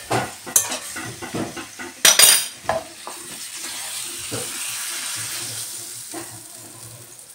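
Metal spoon scraping and knocking against a nonstick frying pan as stir-fried beef and onions are scooped out into a ceramic serving bowl, with a louder clatter about two seconds in. A sizzling hiss from the hot pan runs through the middle and fades near the end.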